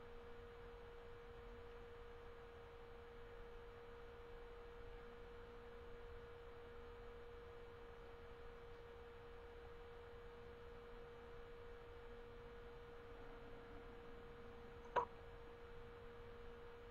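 Faint steady hum on one unchanging mid-pitched tone over low hiss, with a single short click about fifteen seconds in.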